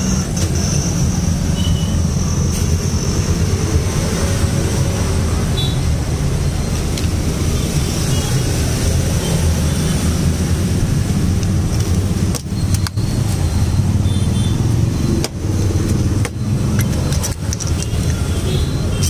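Steady low engine rumble of street traffic, with a few short dips in level.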